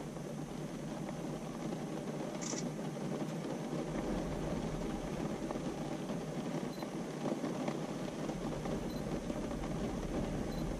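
Steady low rushing background noise, with one brief high hiss about two and a half seconds in.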